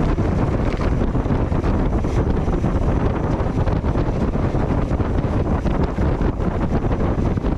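Wind buffeting the microphone of a camera on a mountain bike in motion. Under it, a steady rumble with a constant fine rattle from the tyres and bike over the trail.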